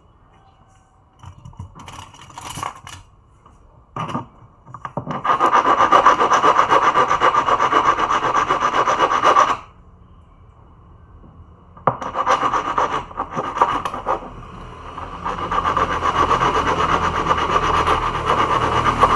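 Fast, rasping scraping or abrading of a hard surface, with a few short strokes at first, then two long continuous spells.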